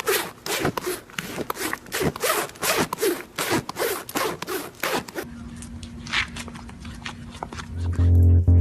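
Rapid rasping or scraping strokes, about three a second, then a faint steady hum; near the end a loud, low buzzing tone comes in.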